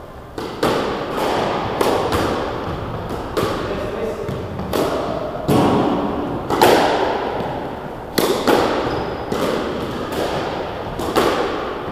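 Squash rally: rackets striking the ball and the ball smacking off the court walls, one or two sharp hits a second, each ringing on in the enclosed court.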